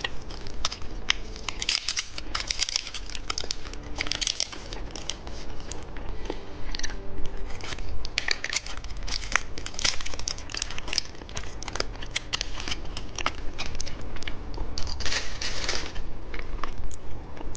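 Candy wrapper being crinkled and torn open, a dense run of irregular crackles with heavier bursts every few seconds.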